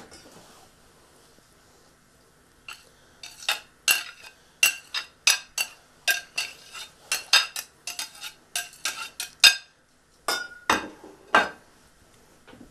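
Metal spoon scraping and knocking mashed peas off a plate into a stainless-steel mixing bowl: a quick run of clinks and scrapes starting about three seconds in, then a few more after a short pause.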